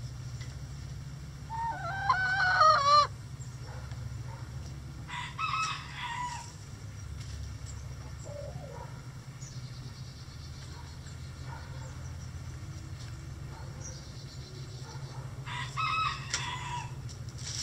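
Bantam rooster crowing once about two seconds in, loud with a wavering pitch, followed by shorter chicken calls about five seconds in and near the end, over a steady low hum.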